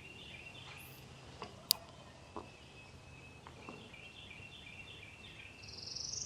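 Quiet open-air background with a bird faintly repeating a short chirping phrase. There is a single sharp click about a second and a half in, and a brief hiss near the end.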